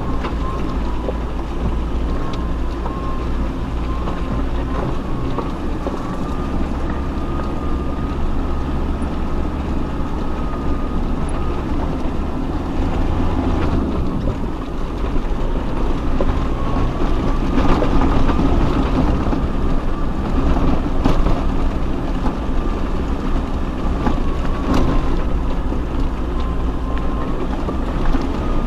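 Off-road 4x4 crawling over a rough, rocky track: steady low engine and drivetrain rumble with a thin wavering whine, broken by scattered knocks and rattles. It grows louder a little past the middle.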